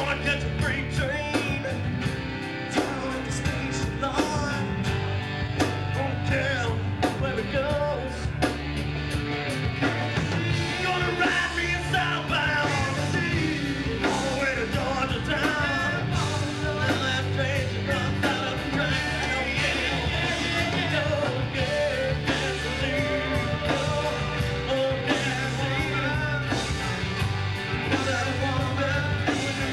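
Live rock band playing a song with electric guitars and a singer, the full band loud and steady throughout.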